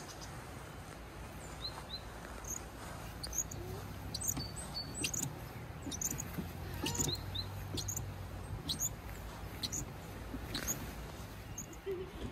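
Small songbirds chirping and singing in short, high notes, scattered throughout, over a faint steady low hum.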